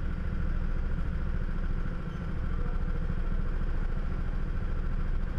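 Go-kart engine idling steadily while the kart stands still, with a thin steady whine above the low running sound.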